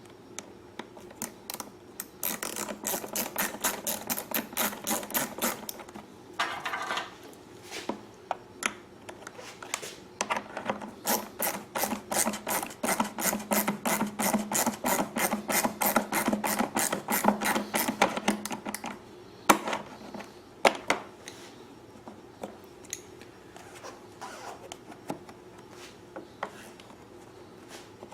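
Hand ratchet clicking in quick, even strokes as a small bolt and nut are tightened, in two long runs with a pause between, then a few scattered knocks.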